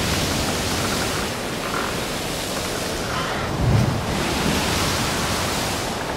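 Ocean surf breaking and washing against a lava-rock shore: a steady rushing hiss that swells twice, with a low thump of a wave striking the rock about three and a half seconds in.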